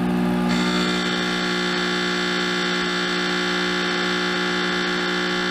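Mr. Heater MH70KTFR kerosene radiant heater just switched on, its motor and fan running with a steady hum before the burner lights. A higher whine joins about half a second in and drops away right at the end, leaving the lower hum.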